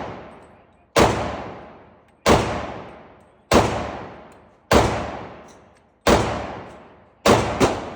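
Glock 33 pistol in .357 SIG with an extended ported barrel firing single shots about every second and a quarter, seven in all, the last two in quick succession. Each shot is followed by a long echo.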